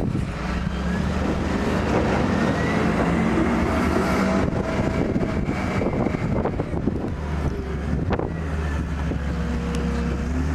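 Snowstorm wind gusting over the microphone, with a motor vehicle's engine running steadily underneath as a low hum.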